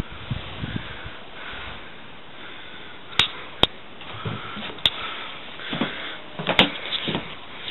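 Handling noise from a handheld camcorder being carried and panned: several sharp clicks and soft bumps over a steady hiss.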